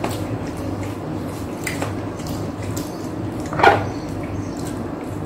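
Close-miked eating of crispy pata kare-kare by hand: wet chewing and mouth sounds with a few short clicks, one louder click about three and a half seconds in, over a steady low hum.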